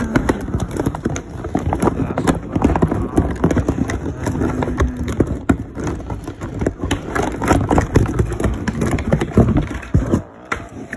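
A cardboard toy box handled close to the microphone, giving a quick, irregular run of knocks, taps and scrapes, with loose contents shifting inside.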